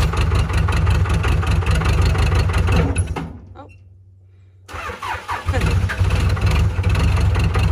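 Backhoe loader's diesel engine running with an even clatter, then dying away about three seconds in. After about a second of quiet it is restarted, catches with a couple of quick revs and settles back to running. The stalling is what they suspect is the tractor running out of fuel.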